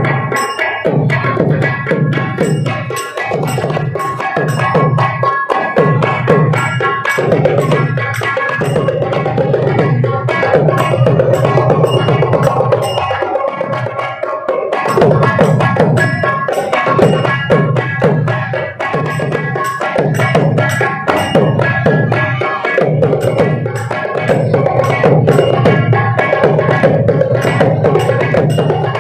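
Magudam drum music: fast, dense stick strokes on the drum with a steady ringing tone sustained over them.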